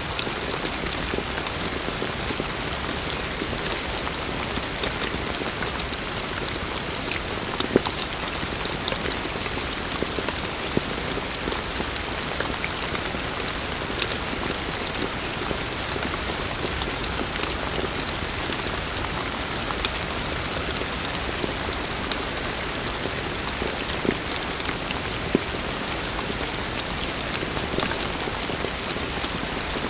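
Heavy rain falling steadily: a dense, even hiss with scattered individual drops ticking close by. Two louder drop hits stand out, one about a quarter of the way in and one near the end.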